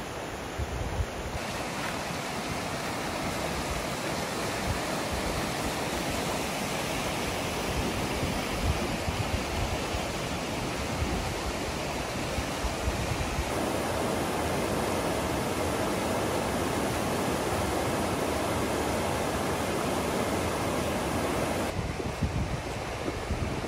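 Fast, shallow river rushing over rocks and boulders, a steady noise of whitewater, with wind gusts buffeting the microphone.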